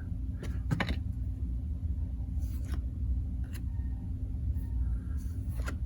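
Steady low room hum with a few faint soft clicks and rustles of trading cards being handled.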